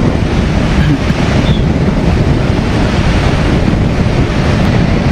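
Steady rush of wind buffeting a helmet-mounted microphone on a Kawasaki Ninja 650 riding at about 90 km/h, with the motorcycle's engine and road noise blended into the low rumble.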